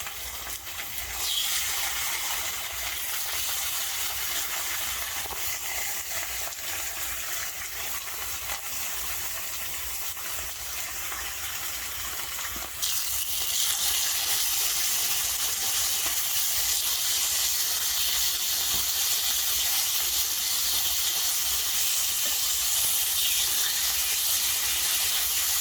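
Samgyeopsal (pork belly) sizzling on a hot grill, a steady frying hiss that grows louder about halfway through.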